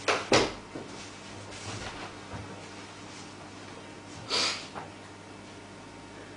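Mouth-made sound effects: two sharp pops near the start, then a short hissing burst about four seconds in.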